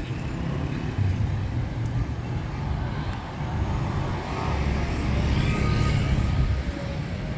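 A motor scooter running along the street and passing, its engine and tyres louder around five to six seconds in, over a steady low rumble of traffic.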